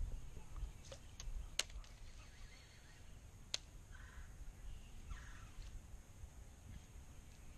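Two short crow caws about a second apart, a little past the middle, against a quiet outdoor background, with a few sharp clicks in the first half.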